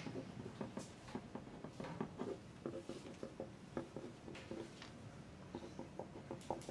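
Faint exam-room ambience of pencils writing on paper, with irregular small taps, clicks and rustles.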